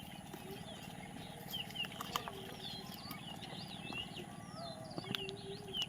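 Birds chirping in many quick, high, scattered notes, with a couple of longer, lower calls in between.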